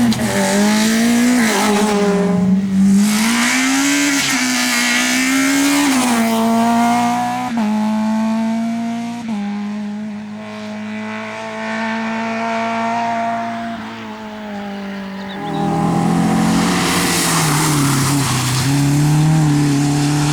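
Rally car engine revving hard, its pitch climbing and dropping again and again as it works through the gears. In the middle the engine note holds steadier and a little quieter, then about fifteen seconds in it swells loudly again as a rally car comes close.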